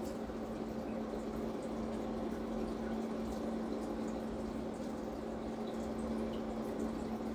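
Steady low hum over a soft hiss of background noise: room tone.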